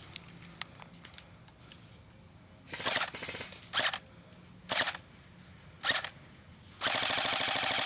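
ICS L85A2 airsoft electric gun firing on full auto, a fast even clatter of shots: a half-second burst about two and a half seconds in, three brief bursts about a second apart, then a longer burst near the end.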